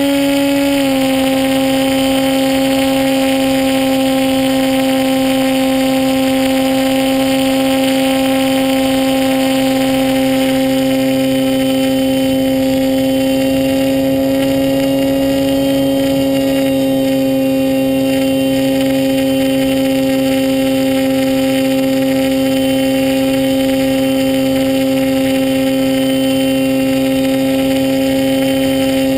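RC model plane's motor and propeller running at steady cruise throttle, heard from on board; the pitch steps down slightly about a second in, then holds steady, with wind rush beneath.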